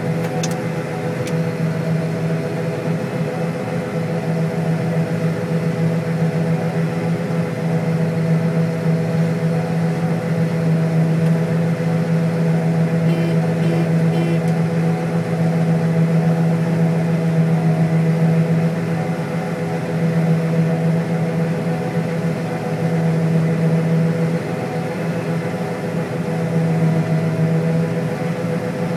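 John Deere STS combine harvester running steadily while harvesting soybeans, a deep even hum with a slowly swelling level. Three short beeps sound about halfway through.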